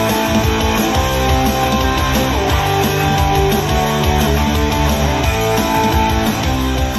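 Guitar-led rock music with a strong bass line, played loud through a JBL Xtreme 3 and JBL Charge 5 Bluetooth speakers linked in PartyBoost, both with their fabric covers removed and drivers bare.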